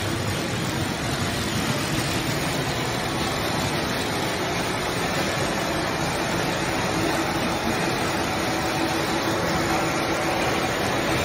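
Industrial sorting machinery running steadily: a continuous mechanical hum and hiss with a faint steady tone.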